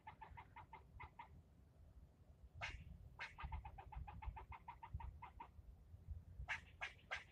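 A squirrel scolding in alarm, faint: trains of rapid short chucks at about six a second, broken by single sharper barks just under 3 s in and again near the end.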